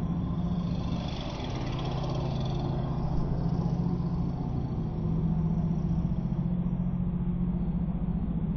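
Electric mountain bike being ridden on a trail: a steady low hum from the tyres and drive, with rolling trail noise.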